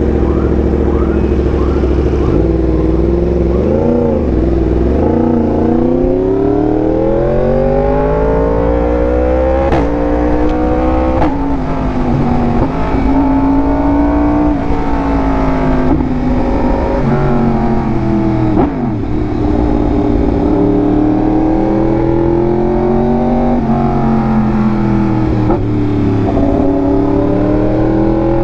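Yamaha R1M's crossplane inline-four engine through an SC Project exhaust, revving under acceleration while riding. Its pitch climbs and falls back repeatedly as the throttle is opened and closed, with a quick blip about four seconds in and sharp drops near the middle.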